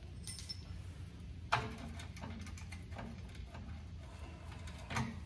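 Light clicks and knocks of hands working at a bolt on a truck transmission held on a jack, the sharpest about a second and a half in and another near the end, over a steady low hum.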